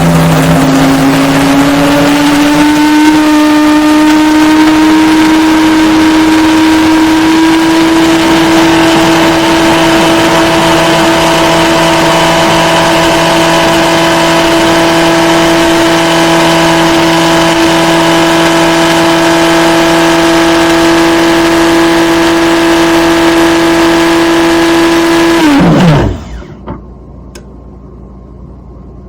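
Built-in blade grinder of a Cuisinart DGB-450 grind-and-brew coffee maker grinding beans: the motor spins up with a rising whine, runs loud and steady for about 25 seconds, then winds down quickly and stops.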